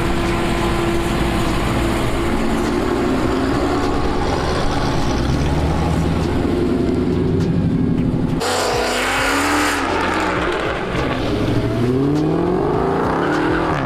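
Dodge muscle car's supercharged V8 running and accelerating, its pitch rising in several sweeps. The sound changes abruptly a little past halfway, then rises again near the end.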